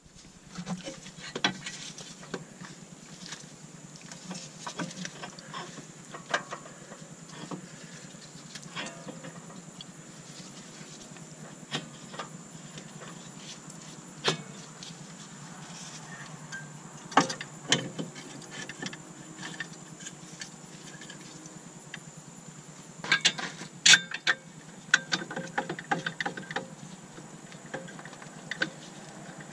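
Scattered metallic clicks, clinks and knocks as a front CV axle's splined shaft is fitted into the hub and the steering knuckle is handled and lined up with the strut. A burst of sharper knocks comes near the end, over a steady background hum.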